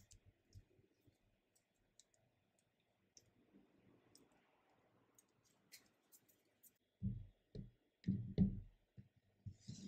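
Hands kneading and rolling a ball of sugar paste: faint scattered clicks and soft rubbing. Near the end come several dull knocks as the pieces are handled and set on the tabletop.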